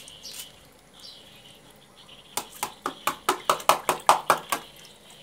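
A quick run of about a dozen sharp clicks and pops, about five a second, starting about two seconds in and lasting a little over two seconds, while catfish pellets are spooned from a plastic cup into a water drum full of feeding catfish.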